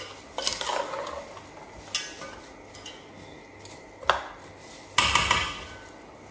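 A gloved hand mixing chunky chicken, potatoes and chana dal in an aluminium pot, with scraping against the pot's sides. A sharp metal clink comes about four seconds in, and a louder clatter of a steel spoon against the pot about five seconds in.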